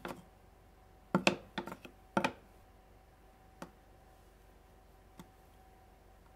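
Sharp clicks and knocks of thin brass plates and a wooden board being handled and set down on a wooden workbench, in quick clusters that are loudest between about one and two and a half seconds in, then two single lighter taps.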